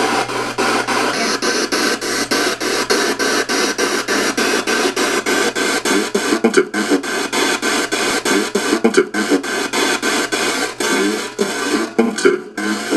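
Spirit box sweeping through radio stations: loud white-noise static chopped into quick even pulses about four times a second, with brief fragments of radio sound in the static.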